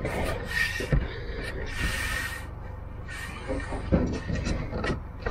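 Laminate floor boards being shifted and pressed into place by hand: rubbing and scraping of board on board, with a soft knock about a second in and another near four seconds.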